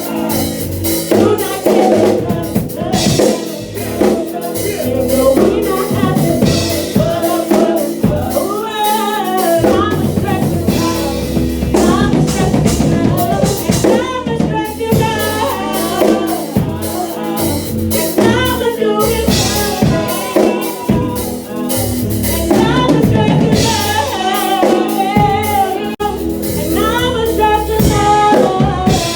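Music with a drum-kit beat, snare and kick hits, and a sung melody over it.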